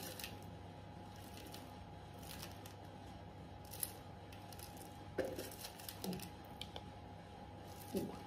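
Faint rustling and scraping of a hand rummaging inside a metal tin, with a few soft knocks, over a steady low hum.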